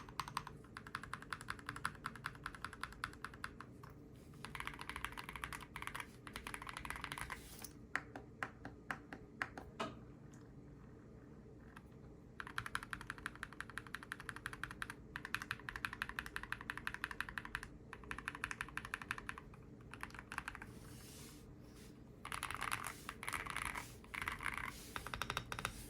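Typing on a modded GMK67 mechanical keyboard. Fast runs of keystrokes come in bursts of a few seconds, broken by short pauses, with a handful of slower single key presses near the middle.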